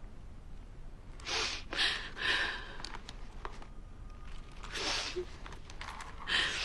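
A woman crying, with several sniffles and sobbing breaths: a cluster about a second in, one more after the middle, and another near the end.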